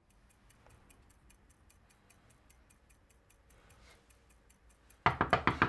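Faint, quick, steady ticking. Near the end comes a fast run of about six loud knocks of a fist on a front door.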